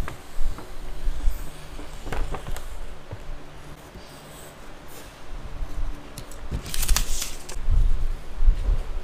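Craft knife slicing through a paper pattern sheet on a cutting mat, with the paper rustling and scraping as it is held and turned. The loudest scratchy swish comes about seven seconds in, followed by soft knocks as the sheet is handled.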